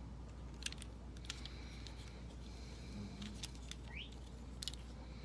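Scattered sharp plastic clicks from a Transformers combiner figure being handled and adjusted, a few single clicks and a quick pair about a second apart at times, with a short rising squeak about four seconds in, over a steady low hum.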